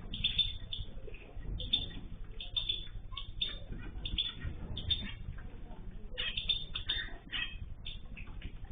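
Small pet cage birds chirping: many short, high calls in quick clusters, over a low steady rumble.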